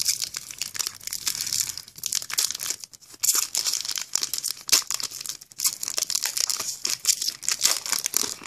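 Metallic foil trading-card pack wrapper being torn open and crinkled by hand: a dense run of sharp crackles and crinkles with a few short pauses.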